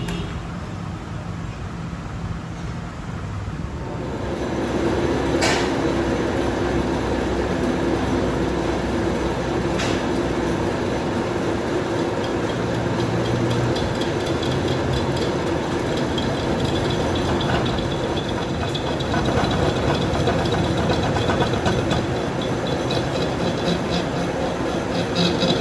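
A workshop machine running steadily, growing louder about four seconds in and then holding a constant hum, with a couple of sharp clicks.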